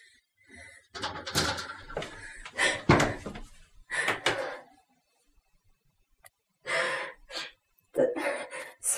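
A woman sobbing in short gasping bursts, with pauses between them and a whimper near the end.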